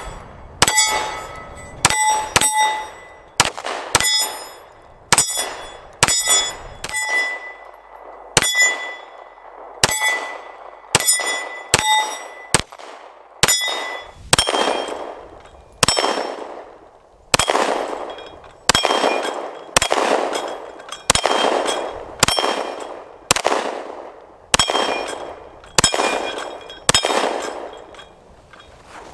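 Walther PDP 9mm pistol fired shot after shot at a steady pace of about one a second, each shot followed by the bright ring of a hit steel target.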